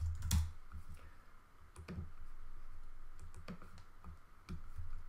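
A few separate clicks from a computer keyboard and mouse, one every second or so, as text is typed into a search box and a search result is opened.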